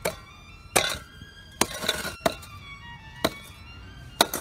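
Hand hoe's iron blade chopping into dry, hard soil, six sharp strikes about a second apart, with a brief scrape of loosened earth in the middle. Soft violin music plays underneath.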